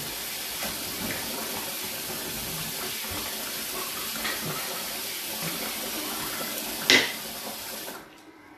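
Tap water running steadily into a pot as black-eyed beans are rinsed, with a sharp knock of the pot shortly before the water is shut off abruptly near the end.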